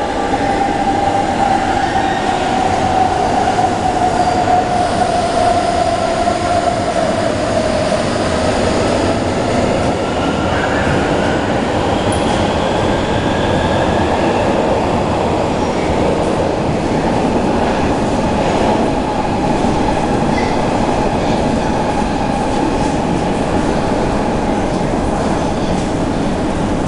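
Hamburg S-Bahn class 474 electric train arriving at an underground platform: a whine that falls slowly in pitch over the first several seconds as it slows, over a steady rumble of the train that goes on to the end.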